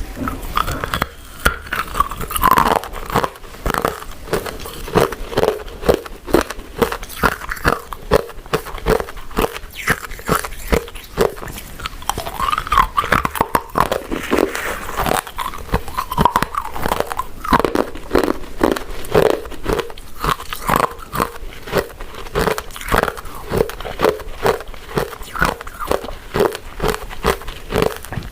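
Someone chewing soft, sticky glutinous rice desserts (purple rice cakes, sweet potato balls and mochi) with wet mouth smacks and clicks, several a second.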